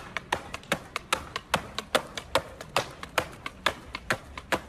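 Skateboard clacking against concrete in quick succession, about five sharp clacks a second, as the skater works the board rapidly with his feet.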